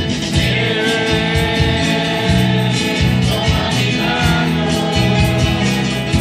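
A hymn sung by voices over a steadily strummed acoustic guitar, the strumming keeping an even rhythm throughout.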